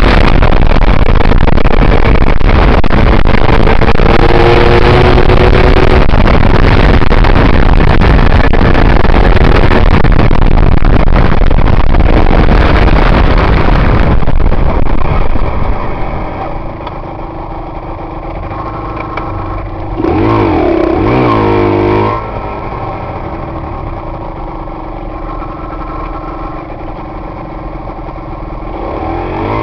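Aprilia RS125 two-stroke single-cylinder motorcycle heard from the rider's helmet: at speed with heavy wind rush over the engine, then slowing about halfway through to a quieter idle. Two quick throttle blips come about two-thirds of the way in, and the revs rise again right at the end.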